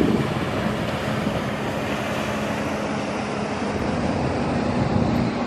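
Outboard engine of a small rigid-inflatable speedboat running at speed, a steady drone over wind on the microphone and the wash of the bay.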